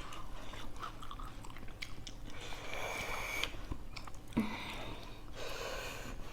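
Faint chewing and mouth sounds of people eating, with small clicks and two longer hissing sounds, about two and a half and five and a half seconds in.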